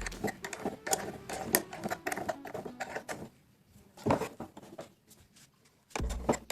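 Rapid, irregular mechanical clicking and tapping for about three seconds, then a few faint clicks, with background music coming back near the end.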